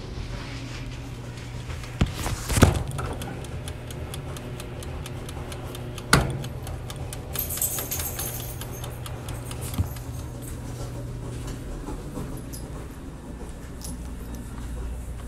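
Knocks and light metallic jingling from a handheld phone being moved about, over a steady low hum. The sharpest knocks come about two seconds in, again near six seconds and once near ten seconds.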